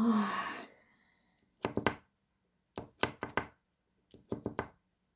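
Light knocks or taps on a hard surface in quick clusters of two to four, four clusters about a second apart, after a brief rustle at the start.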